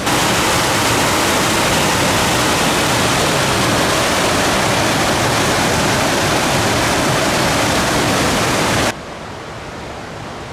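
Loud, steady rushing of a mountain creek's white water cascading over rock ledges, heard close up. About nine seconds in it cuts off suddenly to a quieter, more distant rushing of the river.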